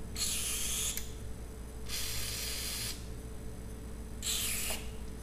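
Aerosol spray can hissing in three separate bursts, the last one shortest, as lubricant is sprayed onto a seized drive shaft coupling to free it.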